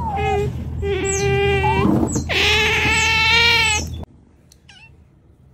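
Otters giving long, drawn-out whining cries, several held notes in a row, which stop suddenly about four seconds in.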